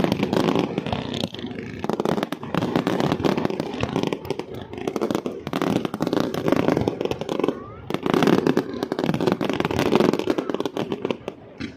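Fireworks display: rapid, continuous volleys of aerial shell bursts and crackling, easing briefly a few times.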